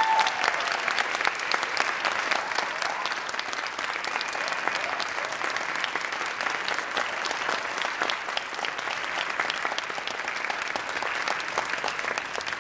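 Audience applauding, a dense, steady clatter of many hands clapping that eases off slightly toward the end.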